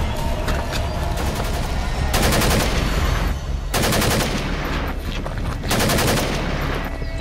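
Three bursts of rapid automatic gunfire, each about a second long, starting about two, four and six seconds in, with scattered single sharp cracks before them.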